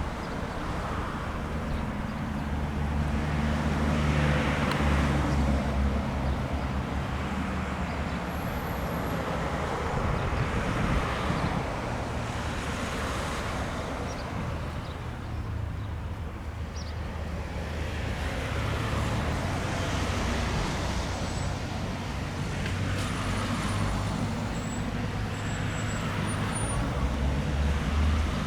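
Engines running with a steady low hum, and a whoosh that swells and fades every few seconds, like vehicles passing.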